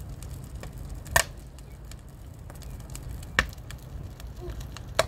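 Three sharp, evenly paced strikes, one every one and a half to two seconds, like a tool chopping or hammering, over a low steady rumble.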